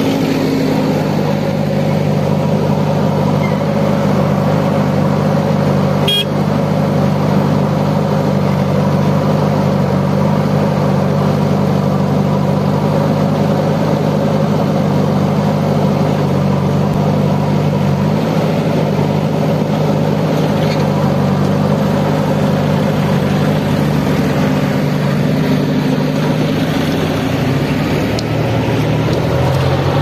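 JCB 3DX backhoe loader's diesel engine running steadily, with a short sharp click about six seconds in. Its note shifts near the end.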